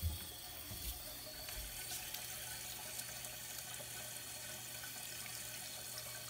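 Toilet tank slowly filling through a newly fitted Fluidmaster 400A fill valve, with the supply valve only partly opened: a steady hiss of water running into the tank. There is a thump right at the start, then a couple of faint knocks.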